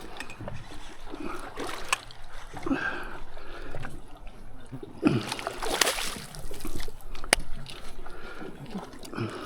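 Water splashing and irregular sharp knocks from a freshly caught fish being handled in a small boat, busiest about five to six seconds in.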